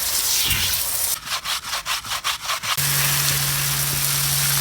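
A stiff brush scrubbing a wheel in quick back-and-forth strokes, about five a second, for about a second and a half. Then a steady hiss of water spray starts and keeps going, with a low hum under it.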